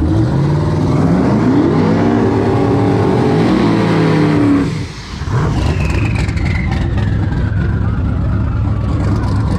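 Car engine revving hard, its pitch climbing steadily for about four and a half seconds, then cutting out briefly about five seconds in before running on with a high whine that falls slowly.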